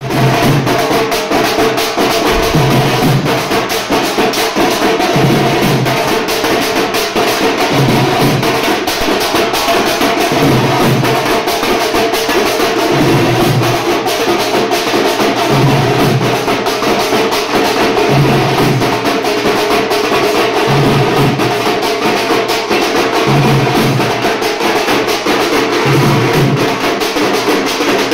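A group of dhol drums beaten with sticks in a fast, dense rhythm. A deeper stroke comes round about every two and a half seconds.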